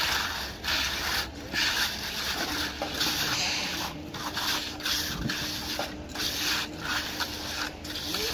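Hand trowel scraping and smoothing wet concrete, in repeated strokes about one a second. A faint steady machine hum comes in about two seconds in.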